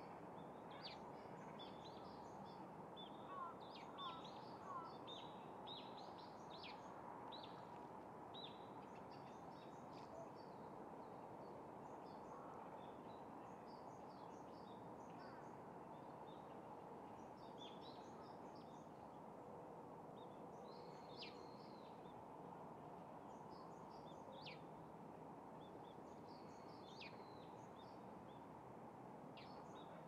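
Faint, scattered chirps and short calls of small birds over steady outdoor background noise. About three to five seconds in comes a quick run of three louder, short rising notes.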